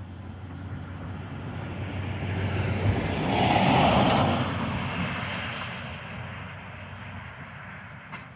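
A vehicle passing on the street: its tyre and engine noise swells to a peak about four seconds in, then fades away.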